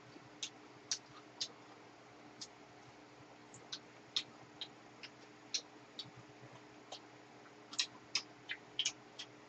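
Irregular crisp crunching clicks of a butter-grilled shrimp being chewed shell and all, coming more often near the end, over a faint steady hum.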